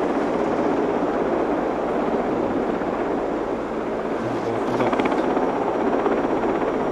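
Helicopter flying in the valley: a steady drone of engine and rotor.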